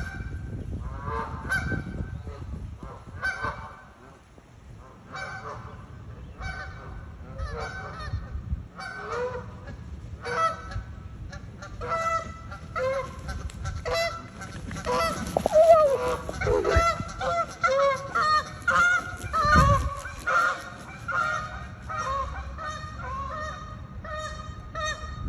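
A flock of geese honking: separate calls at first, building to a loud, overlapping clamour around the middle, then thinning out toward the end.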